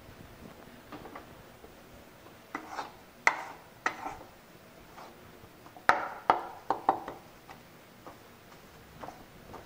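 Metal spatula scraping and knocking against a metal kadhai while stirring wheat flour as it roasts: soft scrapes with sharp clinks in two clusters, about three seconds in and again about six seconds in.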